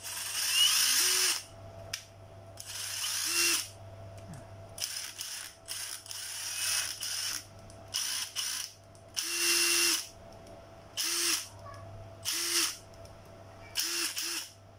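A Makita 14.4 V cordless drill/driver run with no load in about ten short trigger pulls. Each burst of motor whine with a rattling buzz lasts from a fraction of a second to about a second and a half. The longest come right at the start and a little past the middle.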